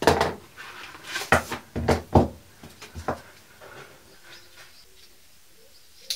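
Hand brake-pipe flaring tool being unpacked from its clear plastic case and handled: a string of sharp clicks and knocks over the first three seconds, then faint handling sounds.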